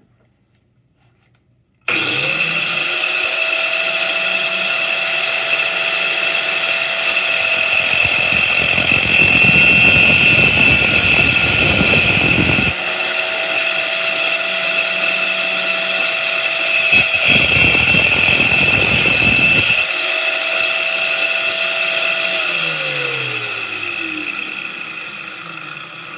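An angle grinder used as a fixed bench grinder and a handheld rotary tool switch on abruptly about two seconds in and run with a steady high whine. Twice the spinning work is pressed to the grinding wheel, adding loud grinding, once for about five seconds and once for about three, as a new revolver firing pin is ground to shape. Near the end the motors are switched off and the whine falls in pitch as they spin down.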